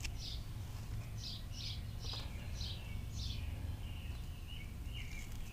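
A bird chirping in the background: a run of short, high chirps a couple of times a second, with a few softer, lower notes near the end, over a low steady hum.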